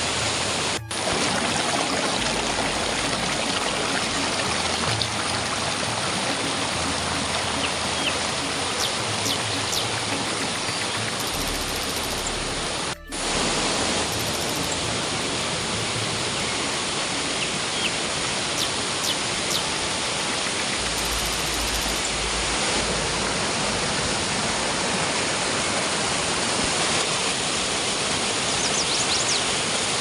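Waterfall rushing over boulders in a steady cascade of water noise, broken by two very short gaps, one about a second in and one about halfway through.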